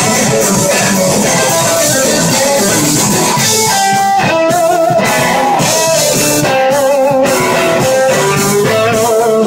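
Live band playing loudly, led by an electric slide guitar solo on a red Gibson SG over bass and drums. The held lead notes waver with vibrato from about four seconds in.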